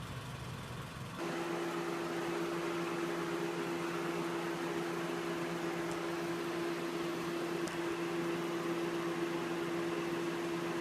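Mitsubishi Lancer idling with its air conditioner running. About a second in, the sound changes abruptly from a low rumble to a louder steady hum with a constant tone and hiss.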